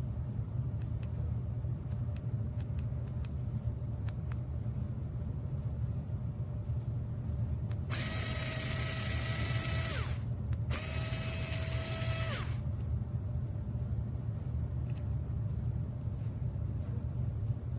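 Mini electric drill pen running in two bursts of about two seconds each, a high whine with hiss that drops in pitch as the motor spins down at each stop, over a steady low rumble.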